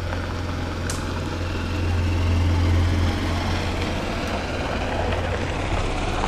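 Golf carts driving past on a paved road, a low hum swelling as one draws close and passes, loudest two to three seconds in. A brief sharp click about a second in.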